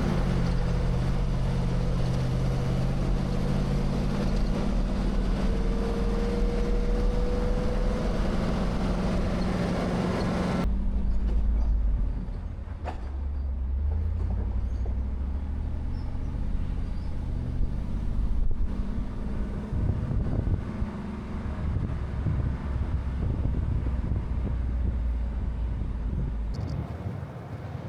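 Jeep Wrangler Rubicon 392's V8 engine running steadily under way, with road and tyre noise. About ten seconds in, the sound changes abruptly to a lower, uneven rumble of the vehicle driving on.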